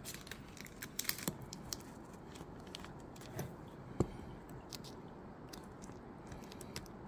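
Faint scattered clicks and small scrapes of steel tweezers and fingertips handling a laptop display ribbon cable and its connector, with a cluster of ticks about a second in and a sharper click about four seconds in.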